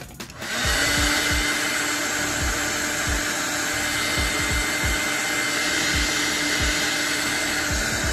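Handheld hair dryer blowing, switched on about half a second in and then running steadily. Background music with a steady beat plays underneath.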